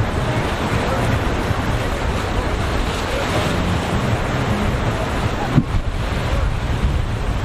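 Wind buffeting the microphone over the steady rush of rough surf, with one short knock about five and a half seconds in.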